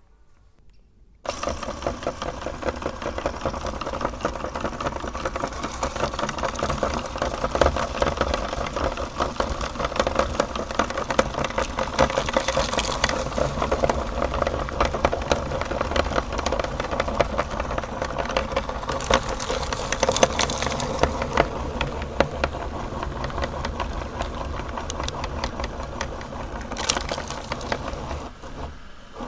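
Electric meat grinder switching on about a second in and running steadily, grinding chocolate bars, with a dense crackle of clicks over the motor hum. It dips briefly near the end.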